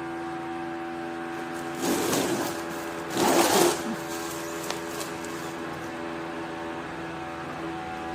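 Alpha Vannus IRIZ DC ceiling fan running, with a steady hum of several held tones. Louder rushing swells come about two seconds in and again around three and a half seconds.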